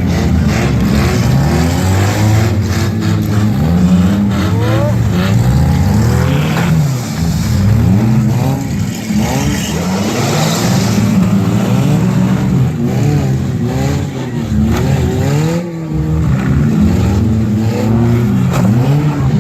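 Demolition derby cars' engines revving up and down over and over, several at once, with a few sharp knocks from cars colliding.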